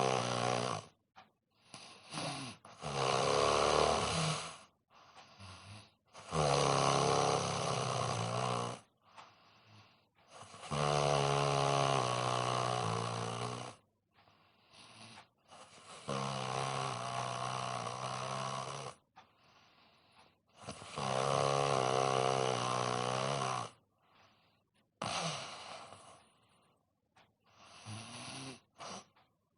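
A man snoring in deep sleep: a long, pitched snore every four to five seconds, each lasting two to three seconds, with quiet pauses between; the last couple are shorter and weaker.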